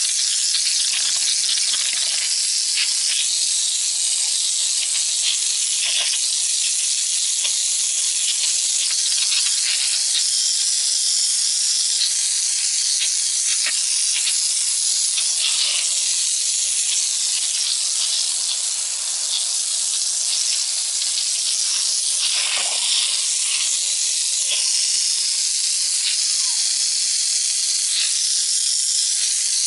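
Garden hose with a sweeper nozzle spraying a steady, high-pitched jet of water against a brick wall.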